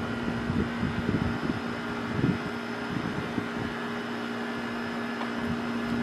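Steady mechanical hum holding one constant pitch, with irregular low bumps and rumbles over the first few seconds.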